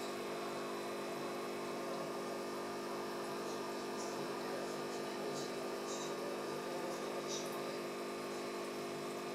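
Steady electrical hum of aquarium equipment such as a pump motor, made of several fixed low tones at an even level, with a few faint high ticks in the middle.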